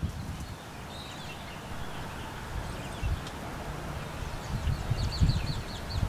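Small songbirds calling in faint, high chirps, ending in a quick run of repeated notes near the end. Low, irregular rumbling bumps run underneath and are loudest near the end.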